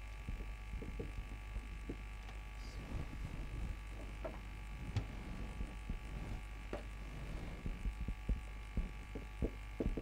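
Faint marker pen scratching and tapping on a whiteboard as letters are written, in short irregular strokes, over a steady electrical hum.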